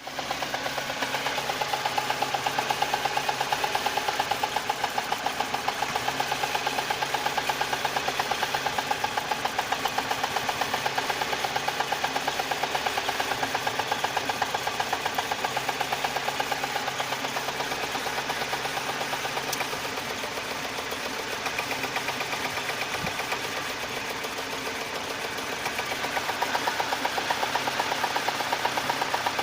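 VAZ 2108 four-cylinder engine idling with a fast, even ticking of unknown origin. For several seconds in the middle the running note drops and changes, as when a spark plug lead is pulled to take one cylinder out.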